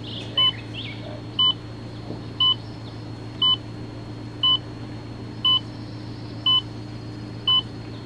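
Electronic beeper sounding a short, steady beep exactly once a second, over a constant low hum.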